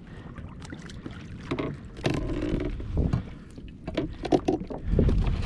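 Scattered knocks and clatter of gear being handled on a kayak, with gusts of wind on the microphone.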